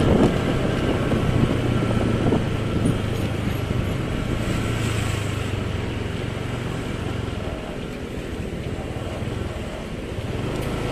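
Motorcycle engine running as the bike rides along, with road and wind noise; its steady low hum drops away about seven seconds in.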